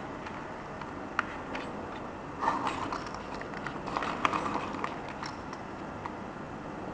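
Small plastic pencil sharpener being handled: a sharp click, then two short bursts of clicking and scraping and a few lighter ticks.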